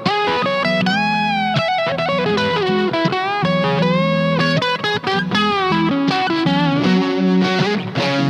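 Electric guitar, a 1965 Fender Stratocaster played through an EarthQuaker Devices Westwood overdrive pedal, playing a lead line of sustained single notes with string bends, over lower held notes, moving into fuller chords near the end.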